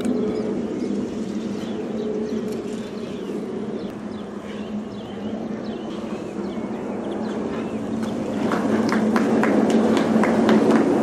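Shweeb pedal-powered monorail pod rolling along its overhead aluminium rail, a steady rumbling hum that grows louder as the pod approaches, with a quick run of clicks, about three or four a second, as it comes close near the end. Birds chirp faintly in the first half.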